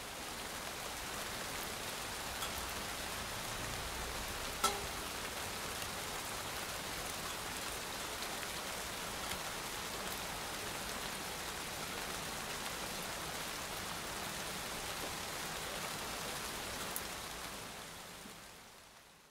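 Steady rain falling, an even hiss dotted with small drip taps and one sharper tap about five seconds in. The rain fades out near the end.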